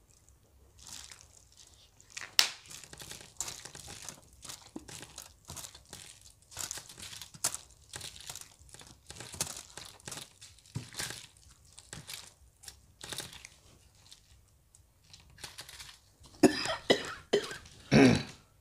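Gloved hands mixing sauce-coated noodles and fried chicken on an aluminium-foil sheet: scattered soft foil crinkles, wet squishes and small clicks. Near the end, a few coughs set off by the very spicy sauce.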